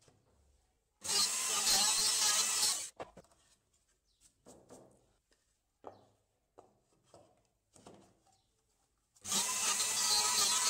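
Plunge router running and cutting angled louver mortises in wood, in two bursts of about two seconds each that start and stop abruptly. In between are light knocks of the wooden jig being shifted along the board.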